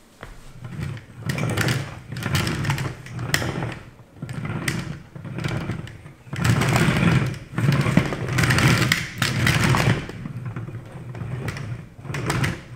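3D-printed plastic mecanum wheels on a steel frame rolling over a wooden parquet floor, pushed back and forth by foot in repeated runs of about a second each: a low rumble with clicking from the rollers.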